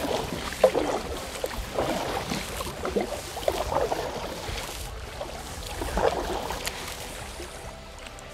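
Water splashing and sloshing around a kayak in uneven bursts, a second or so apart.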